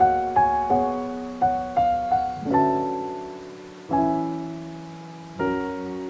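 Background piano music: a slow run of single notes, then held chords that ring out and fade, one every second and a half or so.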